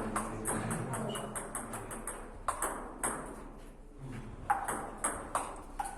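Table tennis ball clicking off rackets and the table in quick, uneven succession, with a few louder hits scattered through.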